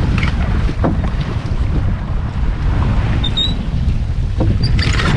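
Wind buffeting the microphone over the wash of the sea aboard a sailboat under way, with a brief faint squeak a little after three seconds in.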